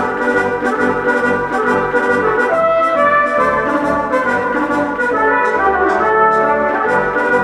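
Background music led by brass, trumpet and trombone, playing held notes that change every second or so.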